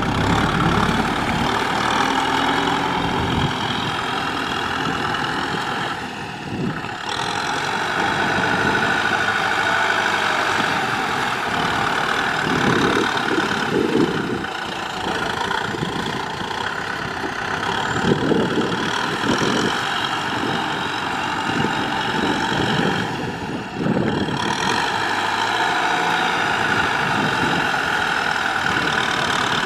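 Kubota M6040SU tractor's four-cylinder diesel engine running steadily, with a few brief surges in its low note every several seconds.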